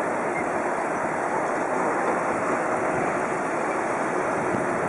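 Steady hiss of an air traffic control tower radio feed in a gap between transmissions, an even, unchanging rush of noise.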